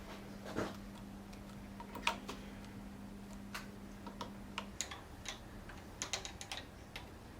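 Irregular light clicks and taps, a sharper one about two seconds in and a quick cluster near the end, over a faint low steady hum that stops about two-thirds of the way through.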